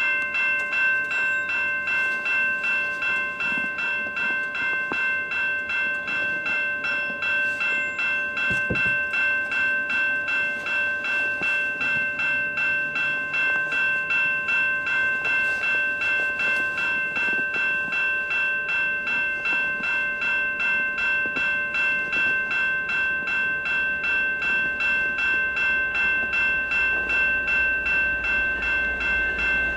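Railroad crossing bell ringing steadily at about two strokes a second, warning of an approaching train. A low rumble from the oncoming train builds near the end.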